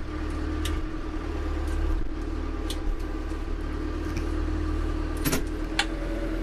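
Branson compact tractor's diesel engine running steadily while its front-loader grapple pulls a large pine stump out of the ground, with a few short sharp knocks along the way.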